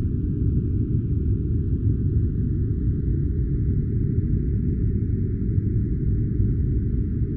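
Steady, deep, featureless noise with nothing in it changing: a white-noise track for sleep or study, filtered so that almost all of it sits low.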